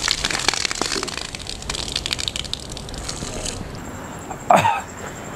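Fuljar soda fizzing hard as it foams over the glass while being drunk: a dense crackle of bursting bubbles that dies away after about three and a half seconds. A short vocal sound from the drinker comes near the end.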